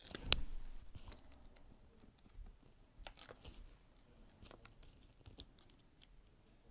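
Faint rustling and crinkling of small paper pieces being handled on a tabletop, with scattered light clicks and one sharp tap just after the start.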